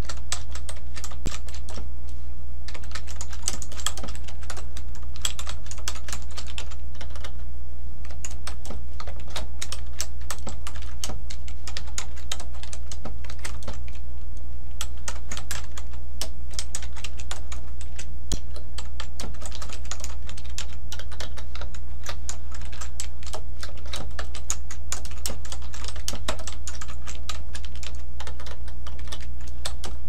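Typing on a computer keyboard: runs of quick key clicks broken by short pauses, over a steady low hum.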